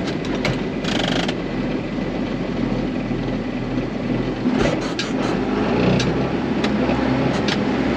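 Diesel excavator engine running steadily just after a hard start, sounding a little weird, with several sharp clanks and clicks, a cluster of them about four and a half to five and a half seconds in.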